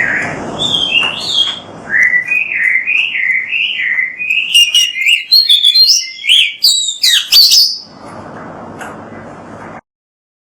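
Oriental magpie-robin (kacer) singing a loud, varied song of fast wavering whistles and sharp chirps, climbing higher toward the end; it stops about eight seconds in, leaving a steady background hiss that then cuts out.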